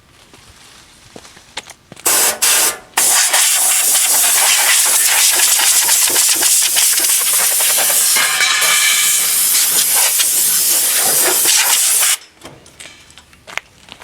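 Air blown through a clothes dryer to clear out lint: two short blasts, then one long steady hissing blast of about nine seconds that cuts off sharply.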